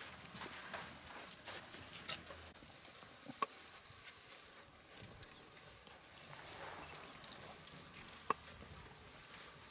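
Quiet bush ambience: faint rustling and crackling, with two sharp clicks, one about three seconds in and one near the end.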